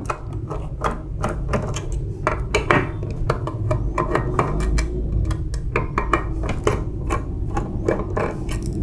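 Screwdriver backing out screws from the metal end plate of a photocopier drum unit: a rapid, irregular run of small metallic clicks and scrapes over a steady low hum.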